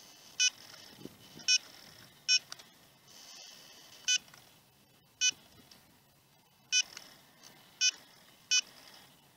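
Sky-Watcher equatorial mount's hand controller beeping at each press of its direction keys as the telescope is nudged to find a guide star. Eight short, high beeps come at uneven intervals, each the same pitch.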